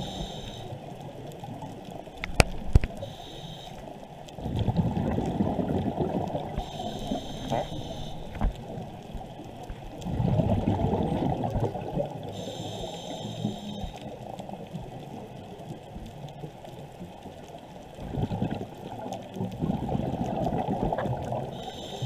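Scuba diver breathing through a regulator underwater: three long rushes of exhaled bubbles, with a short hiss of inhaling between them.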